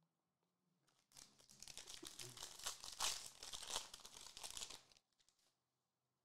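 Foil wrapper of a Prizm basketball card pack crinkling and tearing as it is ripped open by hand, starting about a second in and stopping about a second before the end.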